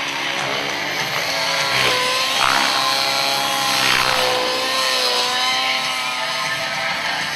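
Model helicopter's engine and rotor running hard through aerobatic manoeuvres, a steady high buzz whose pitch dips and recovers twice.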